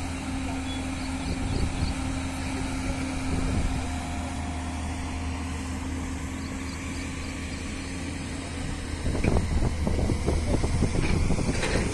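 JCB excavator's diesel engine running steadily, a continuous low hum. From about nine seconds in, louder irregular low rumbling rides over it.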